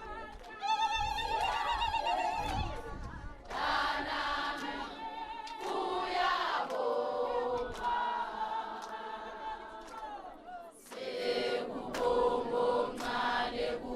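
A group of voices singing together as a choir, holding wavering notes, with short breaks between phrases.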